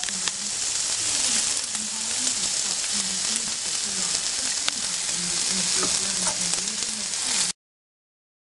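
Red capsicum strips and garlic cloves sizzling steadily in a frying pan, with a few light clicks. The sizzle cuts off suddenly near the end.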